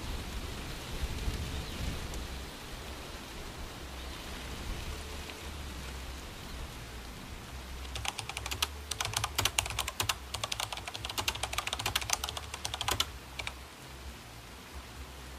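Steady low road and engine rumble inside a moving Toyota Tacoma pickup's cab. About halfway through, a rapid, irregular clatter of sharp clicks and ticks sets in and stops suddenly about five seconds later.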